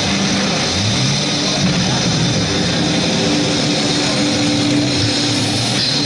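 A steady roaring noise mixed with music, played through a small PA loudspeaker as the furnace prop's soundtrack, with no distinct door bangs.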